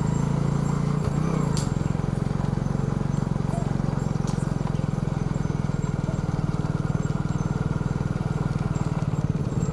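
Hooves of young bulls running on a dirt lane as men lead them on ropes, over a steady low hum.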